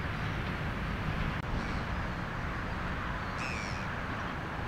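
Steady wind rumble on the microphone, with two short bird calls, one about one and a half seconds in and a clearer one about three and a half seconds in.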